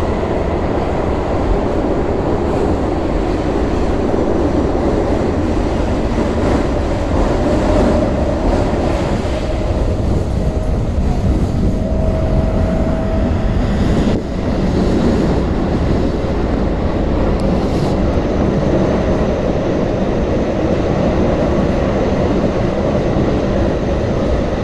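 Keio 9000 series electric train running through a subway tunnel, heard inside the passenger car: a steady rumble of wheels on rails, with a faint steady whine that fades in and out.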